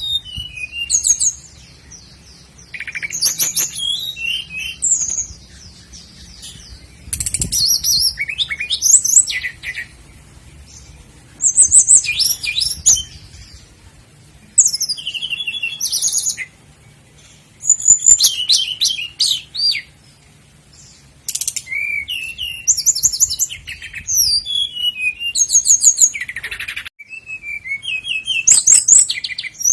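A sikatan londo flycatcher singing: repeated phrases of rapid high trills and whistled notes, about one every two to four seconds, with short pauses between them.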